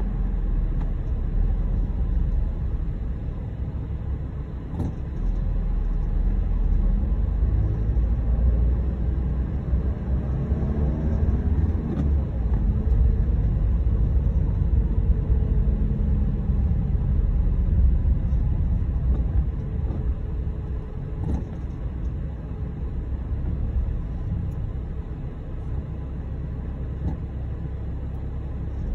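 Car engine and road rumble heard from inside the cabin while driving slowly in traffic, getting a little louder through the middle as the car picks up speed, then easing off as it slows again.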